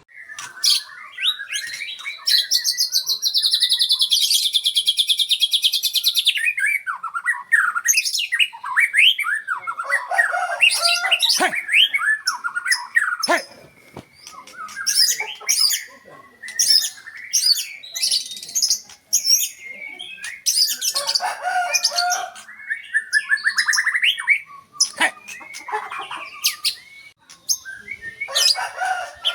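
White-rumped shama (murai batu) singing a long, varied song of whistled phrases and fast trills, with a sustained rapid trill lasting about four seconds a couple of seconds in.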